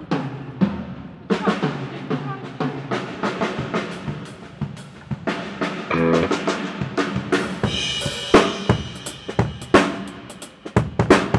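A drum kit being played: a quick, irregular run of kick drum, snare and rim hits, with cymbals ringing out from about two thirds of the way in. A short low held note sounds about halfway through.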